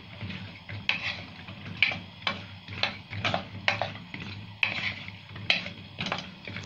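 Wooden spoon stirring whole peeled potatoes in a nonstick frying pan, sautéing them in butter and ghee: the potatoes knock and scrape against the pan about twice a second.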